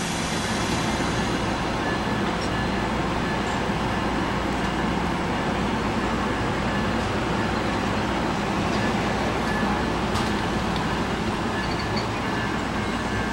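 NJ Transit multilevel commuter train departing, a steady rumble of the train and its wheels on the rails as it pulls away.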